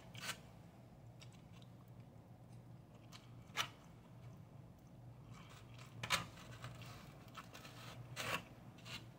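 Plastic spoon scraping and knocking against a foam takeout container while scooping fried rice: a few separate sharp scrapes a couple of seconds apart, over a faint low hum.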